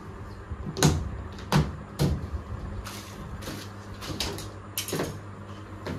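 Knocks and clicks from parts of a top-load washing machine being handled and fitted during installation: three sharper knocks in the first two seconds, then a run of lighter clicks, over a steady low hum.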